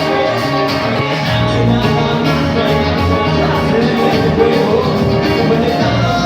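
A rock band playing live, guitars over a steady beat.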